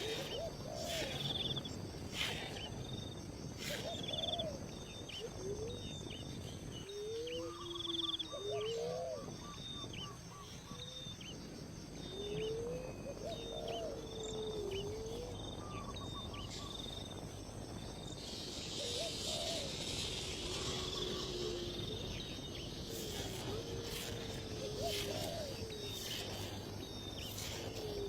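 Several wild birds calling over a steady background of insects: a high short call repeated many times, lower sliding whistles, and a brief fast trill. About two-thirds of the way through, a hissing buzz rises for a few seconds.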